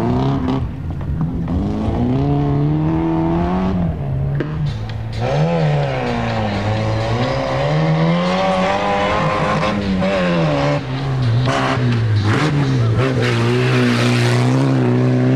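Off-road racing vehicle's engine under hard acceleration, its pitch climbing and dropping several times as it revs and shifts, then holding steady near the end.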